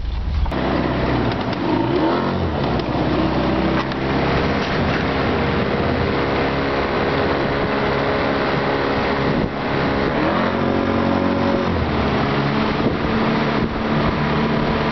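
Bass boat's outboard motor running under way, its engine pitch rising and falling a few times with throttle changes.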